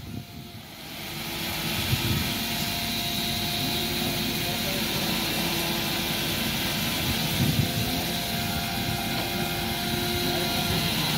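Electric chainsaw cutting into a large log, running steadily; the sound builds over the first second or so.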